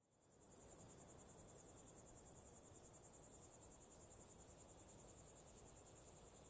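Faint crickets chirping in a steady, high-pitched, rapidly pulsing trill, fading in over the first half second, over a soft low hiss.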